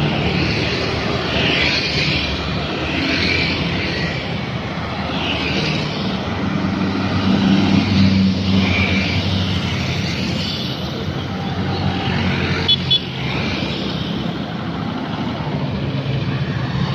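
Roadside traffic: motorbike and truck engines passing one after another in a steady hum that swells and fades, with tyre noise. About thirteen seconds in there is a brief high-pitched chirp.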